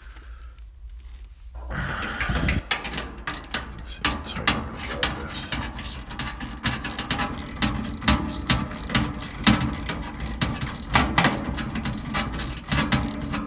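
Rapid ratcheting clicks of a screwdriver tightening a screw with washers into a dryer door's sheet metal, starting about two seconds in and running on.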